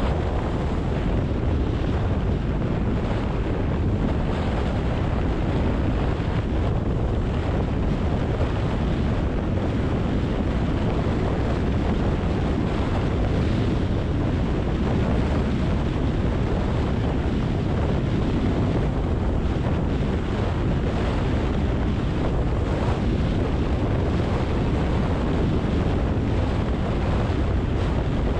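Steady rumble and rushing road noise of a car driving on wet roads, even throughout with no breaks or distinct events.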